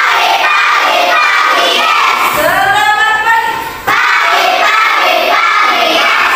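A class of schoolchildren singing a song together in unison, doing an action song with hand motions. There is a brief break about four seconds in.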